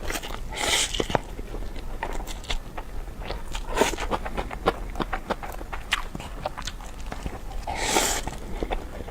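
Close-miked eating sounds: wet chewing and mouth smacks in a quick irregular run of short clicks, with two brief louder noisy bursts, one near the start and one near the end.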